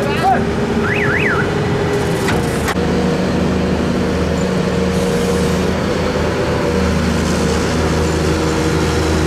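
Diesel excavator engines running steadily, a deep even drone with several held engine tones; the engine note shifts a little under three seconds in. A few brief high chirps sound about a second in.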